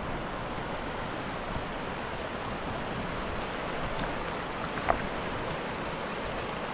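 A fast mountain river rushing over rocks, a steady roar of water. A single short knock sounds about five seconds in.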